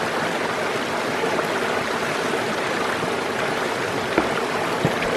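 Small mountain stream spilling over a boulder in a little cascade, a steady rush of splashing water.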